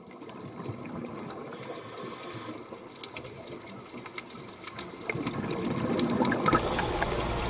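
Water-like trickling, crackling noise with many small clicks, slowly growing louder, with a low rumble joining about six and a half seconds in.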